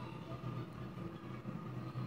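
Steady low background rumble, with no distinct event standing out.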